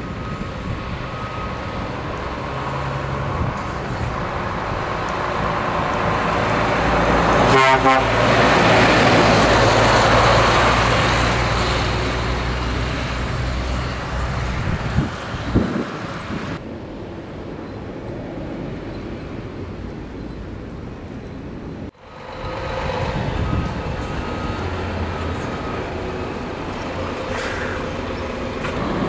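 Scania truck driving along the road, its diesel engine running steadily under road noise. A short horn toot sounds about eight seconds in, and the noise swells for a few seconds around it.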